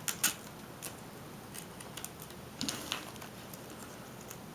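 Faint, scattered light clicks and handling noises from a laptop's plastic display assembly and its webcam cable, worked by hand while the cable's tape is peeled off the old screen.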